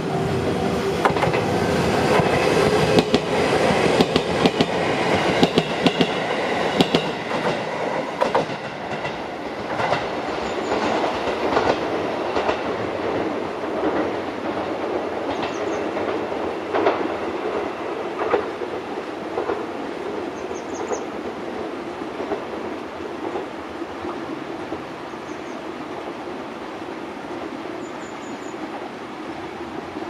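Gotemba Line electric train passing over a level crossing: its wheels clack over the rail joints in a dense run of loud clicks for the first dozen seconds or so, then the rumble slowly fades as it moves away. The crossing's warning bell rings in the first few seconds.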